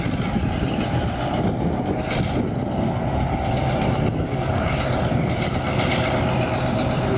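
Diesel locomotive engine running steadily with a low note as the locomotive moves slowly toward the listener.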